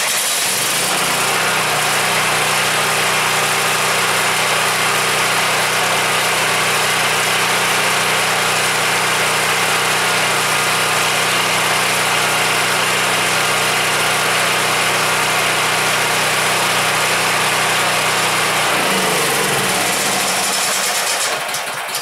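Champion 7000-watt portable generator's gasoline engine running steadily after an electric start, keeping running now that the plugged jet fitting in its carburetor has been cleaned out. Near the end it is shut off and winds down.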